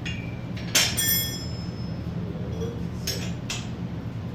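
Steel wrench clinking against a stuck bicycle pedal as it is worked to break the pedal loose: one sharp ringing metallic clink about a second in, then two lighter clicks near the end.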